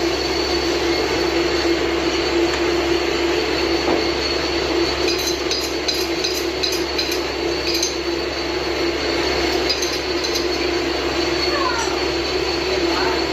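Metal lathe running with a steady hum and a steady high whine over a broad mechanical noise, with a run of light metallic clinks about halfway through.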